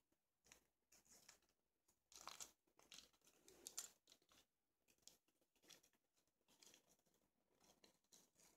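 Faint crinkling and rustling of a plastic bag being handled, in a string of short rustles, the loudest about two to four seconds in.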